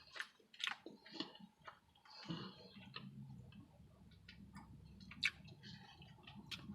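Faint eating sounds: chewing with scattered small mouth and utensil clicks. A low steady hum comes in about two seconds in.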